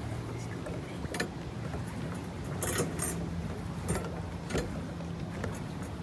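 Pedal boat under way: the paddlewheel churning water in a steady low rumble, with several sharp knocks and splashes from the pedal drive and hull.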